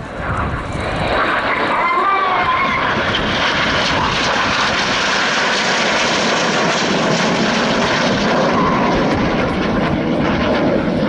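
Jet noise from a formation of BAE Hawk T1 jets and their Rolls-Royce Turbomeca Adour turbofans flying by. The sound swells over the first second, then holds loud and steady with a deep rumble and a hiss on top.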